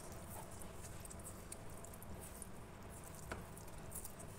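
Guar gum slime with Styrofoam balls being squeezed and stretched by hand: faint wet squishing with many small clicks and crackles, and one sharper click about three seconds in.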